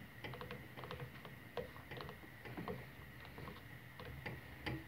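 Wire whisk stirring thick chocolate sauce in a stainless steel pot, with light, irregular clicks and scrapes of the tines against the metal as the chocolate melts into the sauce.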